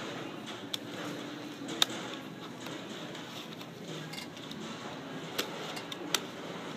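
Flat puzzle-lamp pieces being bent and slotted into each other by hand, with a few sharp clicks and taps as they catch, the loudest about two seconds in.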